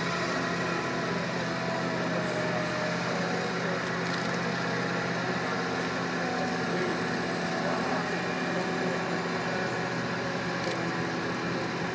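Heavy diesel construction machinery running at a steady pitch while a steel beam is hoisted by crane.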